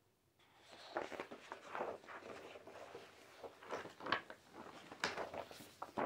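Paper rustling and flapping as a large glossy booklet is leafed through and handled, in a run of irregular rustles with a few sharper page flaps.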